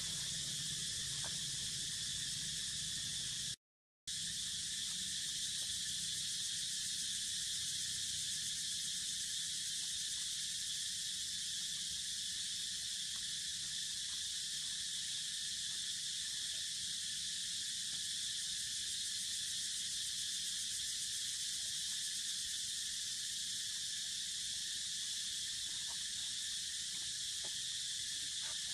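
Steady high-pitched drone of an insect chorus, unbroken except for a brief dead silence about four seconds in.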